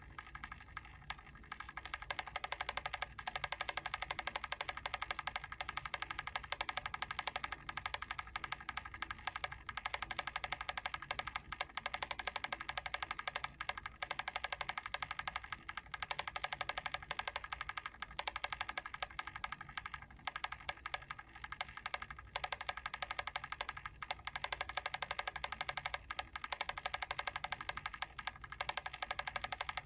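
Timer switch's timing mechanism ticking, a rapid, steady run of small clicks.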